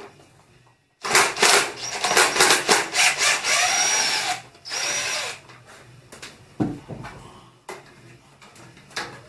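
Cordless drill/driver running in two bursts, a long one of about three seconds and a short one after, its whine rising and falling with the trigger. Quieter handling clatter and a couple of knocks follow.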